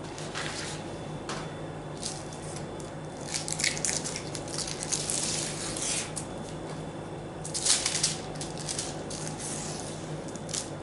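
Baking paper rustling and crinkling in irregular bursts as it is peeled off the back of a baked sponge cake sheet, over a faint steady low hum.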